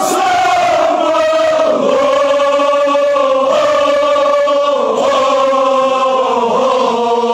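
Kashmiri marsiya, a Shia elegy, chanted in long held notes that slide down in pitch now and then.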